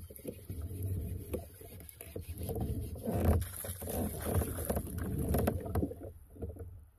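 Water lapping and sloshing against a kayak hull, with scattered light clicks and knocks as a baitcasting reel is cranked.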